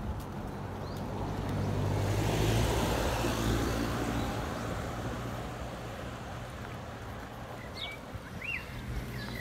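A Toyota Land Cruiser Prado SUV passing and driving off up the road: engine and tyre noise swell to a peak about two and a half seconds in, then fade as it pulls away. A few short bird chirps come near the end.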